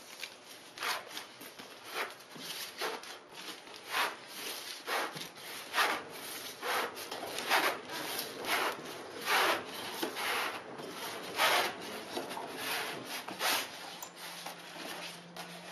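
Two halves of a styrofoam (expanded polystyrene) packing case squeaking and scraping against each other as they are worked apart by hand, in repeated strokes about once a second.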